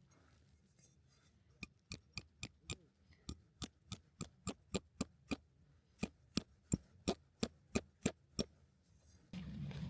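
Rapid metallic tapping: sharp strikes about four a second in three runs, each with a short high ring. A steady rushing noise starts just before the end.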